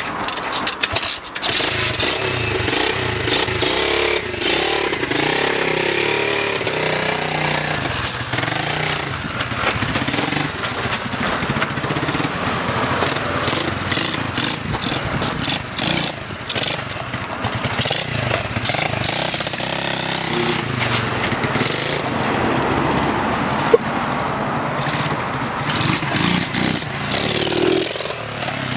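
A pit bike's 125cc single-cylinder four-stroke engine with a makeshift exhaust starts up near the beginning, then runs and revs up and down as the bike is ridden away and back past. A single sharp crack comes about five seconds before the end.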